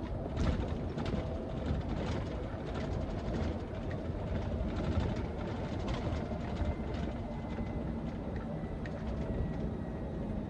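Lorry engine and road noise inside a moving truck's cab: a steady low rumble with frequent light clicks and rattles.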